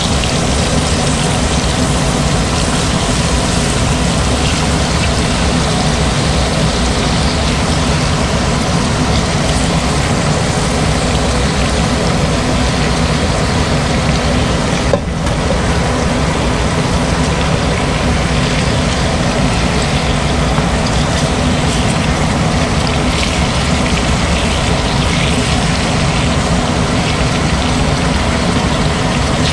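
Chicken wings frying in oil in a stainless steel wok, a steady sizzle over a constant low mechanical drone.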